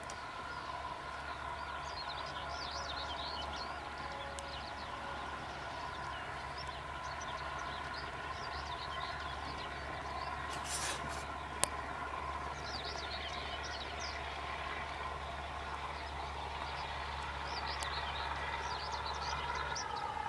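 Steam-hauled heritage train (locomotive 477.043 with a T458 diesel) running in the distance: a steady low rumble with a faint mid-pitched drone. Birds chirp in short bursts at times, and there is one sharp click near the middle.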